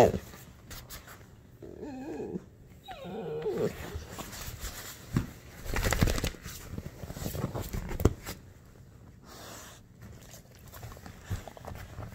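A young pit bull gives two short whining cries about two and three seconds in, the plaintive crying she makes when petting stops. Then comes a louder stretch of scuffling and rubbing on a leather recliner as she shifts and climbs about, with a further knock a couple of seconds later.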